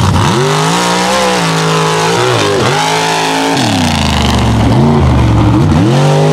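Mud racing super truck's engine revving, the pitch climbing and falling several times as the throttle is worked, with a sharp dip about two and a half seconds in and shorter revs near the end.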